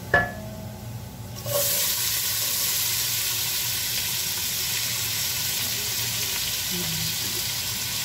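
A sharp knock at the start. About a second and a half in, chopped onions go into hot oil and browned garlic and start to sizzle, a loud, steady frying hiss.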